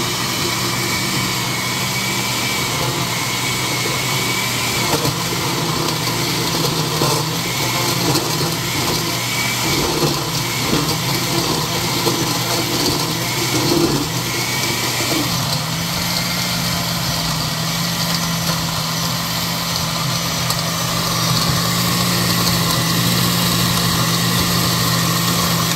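Oster countertop blender motor running at speed, churning a thick mix of onion, scallion, peppers, seasoning and vinegar into a jerk marinade. The churning is lumpy at first and turns steadier about halfway through as the mix blends smooth, and the motor is switched off right at the end.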